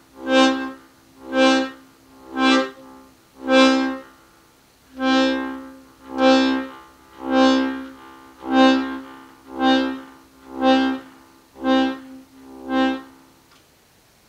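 Piano accordion's C bass button sounded as twelve short notes of the same pitch, each started and stopped by the bellows alone, about one a second. The notes stop a second or so before the end.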